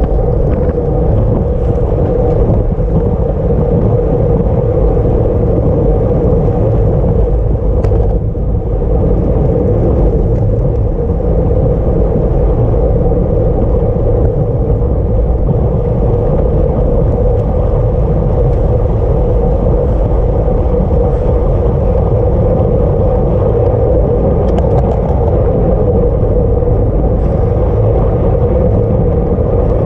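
Loud, steady rush of wind and road noise on a camera riding along with a racing bicycle at speed, with a low rumble underneath.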